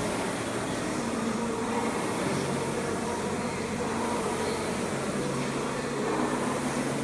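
Concept2 air rowing machine's fan flywheel whirring steadily as it is rowed.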